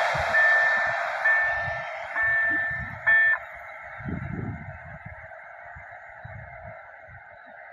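Level-crossing warning signal sounding a repeated electronic tone, about one beep a second, with the last beep a little over three seconds in, over the fading rumble of a passenger train that has just passed.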